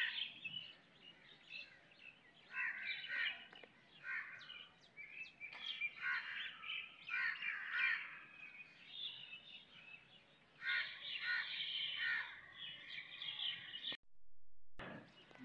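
Birds calling over and over, in repeated bursts of harsh calls, until the sound cuts off abruptly near the end.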